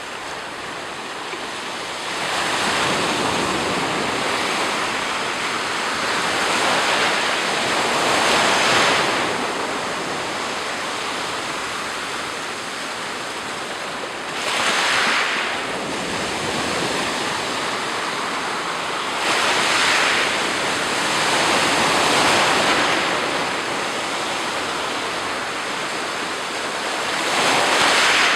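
Black Sea surf: waves breaking and washing up the shore one after another, each surge swelling and fading over a few seconds.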